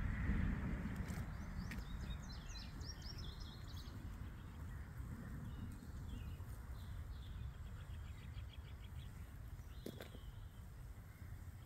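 Low wind noise rumbling on the microphone, with birds chirping: a quick run of high notes about two seconds in and a fast, even trill around eight seconds. There is a single click near the ten-second mark.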